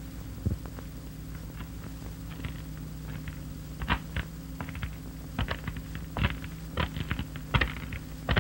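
Super 8 mm film sound track with poor quality sound: a steady low hum with irregular sharp clicks and crackles scattered through it, denser in the second half.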